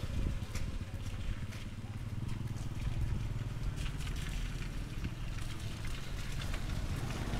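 Street ambience: a steady low rumble of vehicle engines in traffic, with faint light ticks scattered through.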